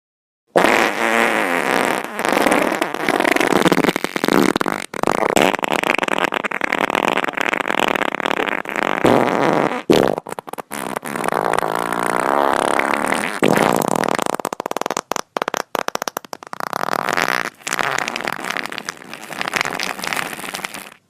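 Fart sound effects: a long run of loud, buzzy, flapping farts with a few short breaks, stopping abruptly just before the end.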